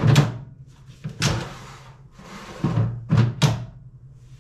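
Air fryer drawer of a Cosori Dual Blaze TwinFry being slid open and pushed shut several times: about five thunks, one at the start, one about a second in, and a quick run of three near the end.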